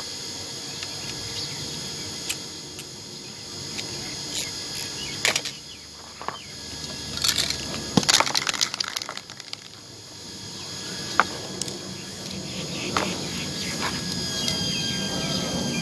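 Scattered light clicks and knocks of small parts and a die-cast model car shell being handled on cardboard. A short burst of rapid clattering comes about eight seconds in, as a spray paint can is picked up.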